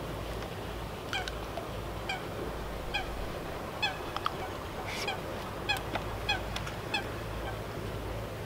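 Geese honking somewhere on the lake: a string of short honks, roughly one a second.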